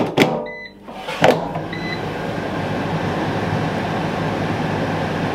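Cosori dual-zone air fryer: its drawers are pushed shut with a knock about a second in, two short beeps sound, and the fans start up and run steadily as both zones resume cooking.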